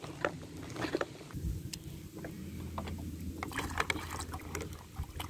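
Water poured from a plastic bottle into a plastic bowl, with scattered clicks and crackles.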